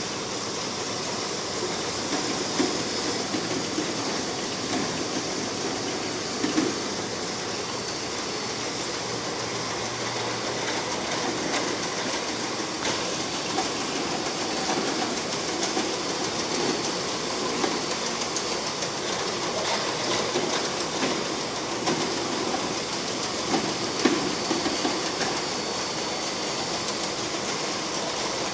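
Bottle sorting and conveying line running: the rotary table and curved slat conveyor carry empty plastic bottles with a steady mechanical clatter of bottles knocking together over a continuous hiss. A faint high-pitched whine runs under it.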